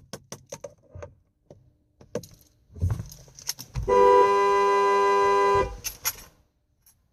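Rapid clicking, about seven clicks a second, stopping about a second in; then a few knocks, and a car horn sounding one steady blast of about two seconds.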